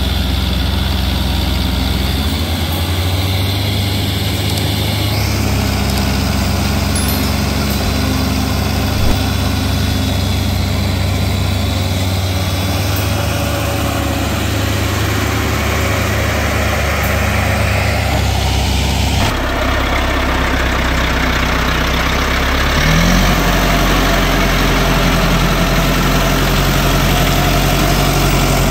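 Diesel engines of an LKT 81 forestry skidder and a Zetor tractor running steadily while the skidder tows the tractor. The engine note changes abruptly twice, and there is a short rev a little past twenty seconds.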